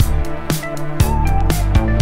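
Background music with a steady beat of about two hits a second over bass and melody.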